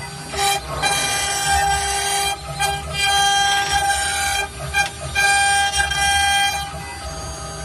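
CNC router engraving letters into MDF: the spindle and cutter run over a low rumble, while high whining tones switch on and off and change pitch in short stretches as the cutter moves from stroke to stroke.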